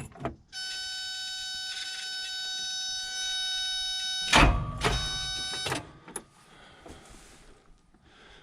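A backhoe failing to start: a steady, high-pitched warning tone sounds while the key is held, and about four seconds in there is one heavy clunk as the starter jams instead of turning the engine over. The tone cuts off near six seconds.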